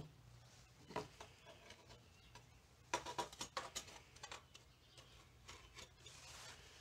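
Faint clicks and knocks of a plastic spring clamp being handled and set onto a red plastic tail-light lens on a workbench, with a cluster of clicks about three seconds in, over a low steady hum.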